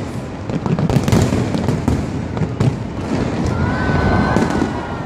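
A large aerial fireworks display going off in a dense barrage: a continuous rumble of booms with many sharp bangs and crackles.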